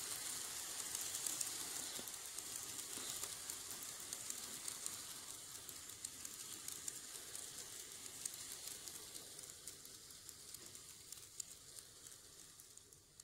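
Model N700-series Shinkansen train running on a model railway layout. Its motor and wheels on the track make a steady hiss with many fine ticks, fading gradually toward the end.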